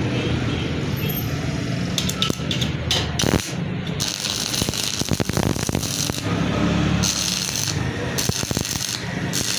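Stick-welding arc crackling and sputtering from an E6013 electrode, with irregular sharp crackles over a low steady hum.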